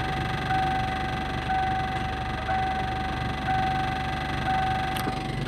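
The Kia Sportage's warning chime beeps about once a second, each beep a short two-pitch tone, over the low hum of its CRDi diesel engine idling. A single click sounds about five seconds in.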